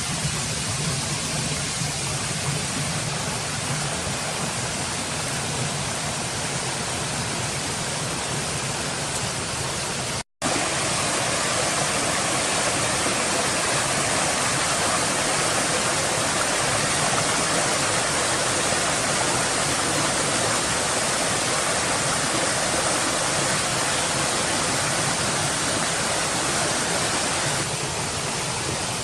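Steady rushing noise of running water, broken by a momentary silent gap about ten seconds in and a little louder after it.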